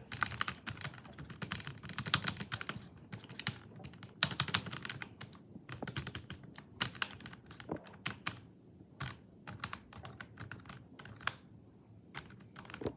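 A lubricated key on a membrane keyboard pressed repeatedly, giving a run of irregular clicks and taps in clusters. The lube is there to stop the key making noise, and the result sounds nice.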